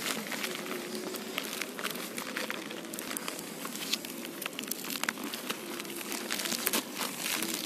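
Plastic mailer bag crinkling and tearing as hands pull it open, with many irregular sharp crackles.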